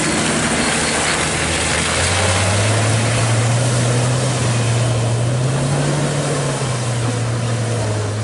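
Ford Bronco engine running under load as the truck drives off through a muddy trail, its tyres spinning and slinging mud. The engine note drops about two seconds in, then holds steady.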